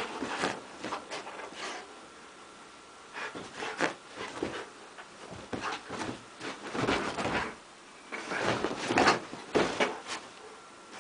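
A Rottweiler pouncing and pawing at a bedspread, irregular rustling scuffles and soft knocks in bunches every second or two.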